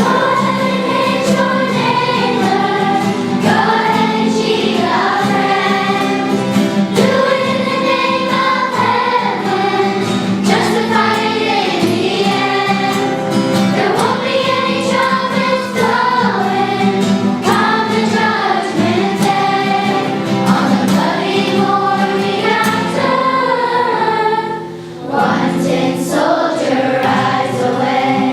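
A choir of school students singing a song together over a steady low held note, with a short break near the end.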